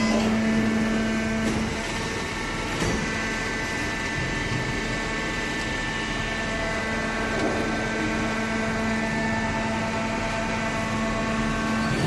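Vertical paper baler's hydraulic power unit running steadily: an even machine hum with a faint knock about three seconds in.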